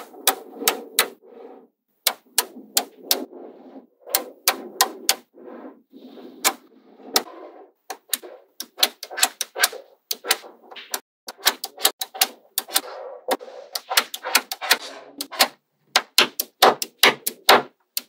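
Small magnetic balls snapping together with many sharp, irregular clicks, some in quick runs. Between the snaps there is a softer rattle of balls shifting against each other.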